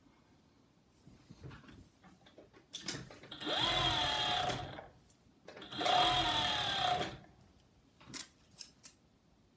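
Juki MO-6700 series overlock serger running in two short bursts, about two seconds and then a second and a half, each starting with a rising whine as it speeds up, while stitching a waistband onto knit fabric. A few light clicks come near the end.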